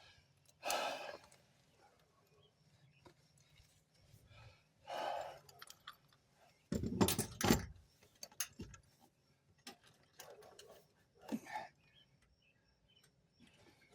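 Scattered clicks, scrapes and knocks of a 2-inch cam lock coupling being handled and worked onto an IBC tote's bulkhead fitting, a tight fit over its rubber gasket, with a louder clatter about seven seconds in.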